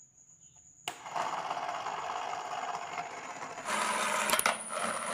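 A switch clicks about a second in and a toy car's small DC motor starts running, whirring steadily through its gears. The whirr gets louder near the end, with a couple of short knocks.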